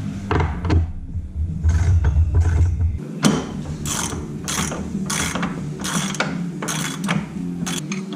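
Ratchet wrench clicking through repeated strokes, tightening the bolts that mount a bench vise to a workbench. The strokes come at about two a second from about three seconds in.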